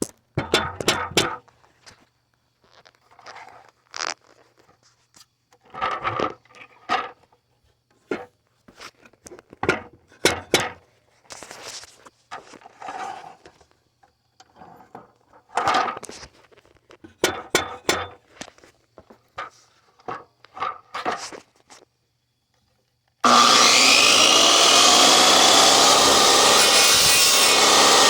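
A wooden fence brace being cut to length: scattered short bursts of sawing and handling noise, then about three-quarters of the way through a power tool starts and runs loud and steady.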